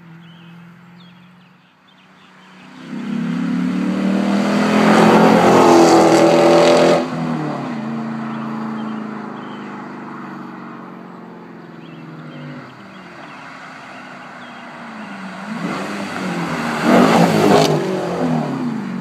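2009 Dodge Challenger SRT8 with a Solo Performance exhaust, its 6.1-litre Hemi V8 accelerating hard at full throttle. The sound swells to a loud peak about four to seven seconds in and cuts off abruptly. After a steadier, quieter stretch, a second hard pull swells again around sixteen to seventeen seconds and drops off suddenly.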